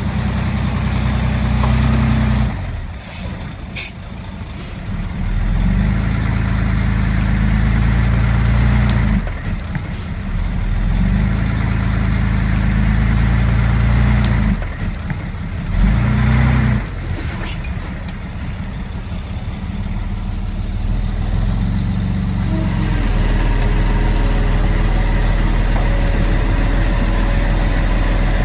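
Heavy diesel earthmoving machinery running under load, its engine note swelling and easing off repeatedly, with a few sharp knocks and clanks; it dips briefly twice and settles into a steadier run near the end.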